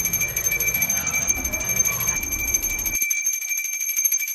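Hand-held puja bell rung continuously, its clapper striking many times a second, giving a steady high ringing.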